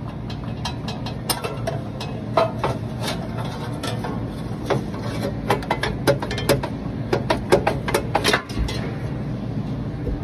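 Irregular metallic clicks and knocks of hand tools and parts as the engine's cooling fan and belt pulley are worked on, quickening into a busy run of clicks about six seconds in, over a steady low hum.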